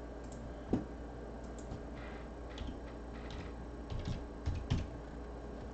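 A few scattered light clicks and taps, one near the start and a cluster in the second half, over a faint steady low hum.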